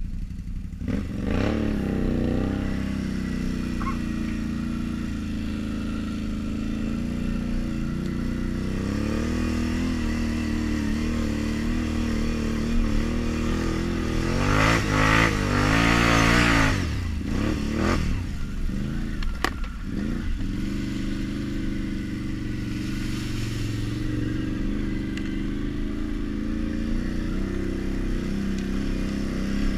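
2016 Can-Am Renegade 850 ATV's V-twin engine, fitted with a Yoshimura exhaust, running under way and revving up and easing off with the throttle. The hardest rev comes about halfway through, followed by two quick drops in revs before it settles into a steadier pull.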